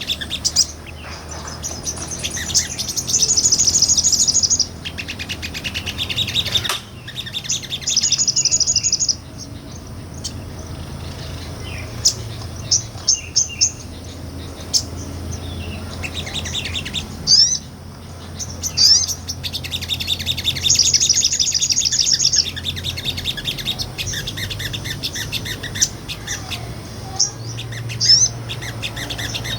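Sogon, a small nectar-eating bird, singing full song: high, rapid trills of one to two seconds repeated again and again, with short chips and quick sweeps between them, over a faint low hum.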